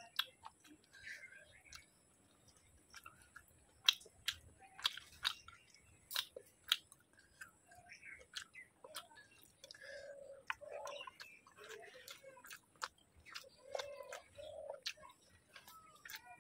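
A person chewing a mouthful of rice and fish curry, with irregular sharp mouth clicks and wet smacks.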